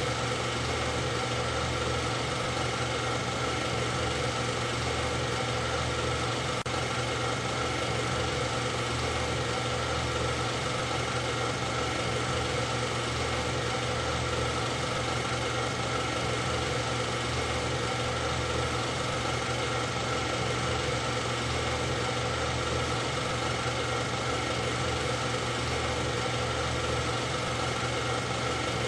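A steady machine hum that does not change in pitch or loudness throughout.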